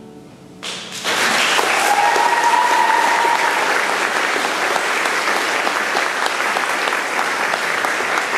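The last held notes of the accompaniment fade, then audience applause breaks out about a second in and carries on steadily, with one brief whooping cheer about two seconds in.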